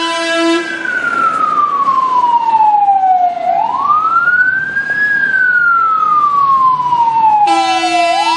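Fire engine's wail siren sweeping slowly up and down, each cycle a quick rise and a slower fall, about two cycles. A steady horn tone sounds over it for about the first second and comes back near the end, with the truck's running noise underneath.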